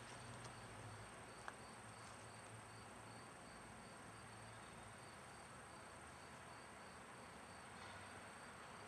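Faint insects chirping in a steady rhythm of about three pulses a second over a continuous high buzz, with a faint low hum that fades out about halfway through.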